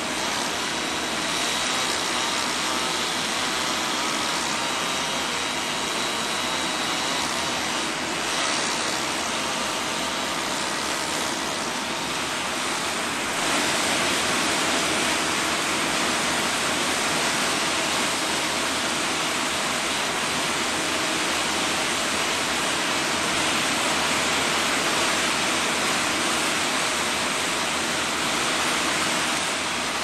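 Heavy equipment engine running steadily, heard as a loud, even rushing noise. It gets slightly louder about halfway through.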